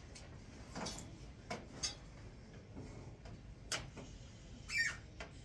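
A few light clicks and taps, about five scattered over several seconds, over a faint room hum. The last one is the loudest, with a brief ring to it.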